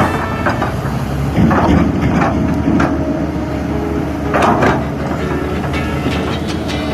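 Large Kobelco hydraulic excavator's diesel engine running steadily under load while digging, with a few short clanks and scrapes from the bucket working soil.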